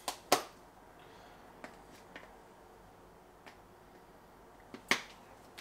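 Sharp taps and clicks of kitchen utensils against a bowl and containers: two close together at the start, a few faint ticks, then another sharp tap near the end.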